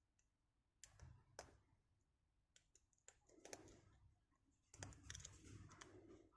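Faint, scattered clicks and light scratching of a lock pick and tension wrench working the pins inside a Kasp 40mm aluminium padlock, with a busier run of small clicks near the end.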